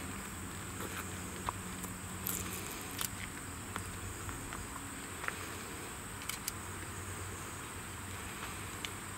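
Steady high-pitched insect buzzing over a low steady hum, with scattered faint clicks.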